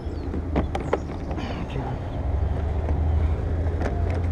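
Steady low rumble of road traffic going by, with a few sharp clicks about half a second in and again near the end as plastic trim is pressed into place.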